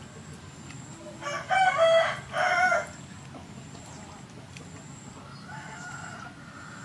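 A rooster crowing once, about a second in: a loud pitched call lasting about a second and a half, broken into two parts. A much fainter, shorter call follows near the end.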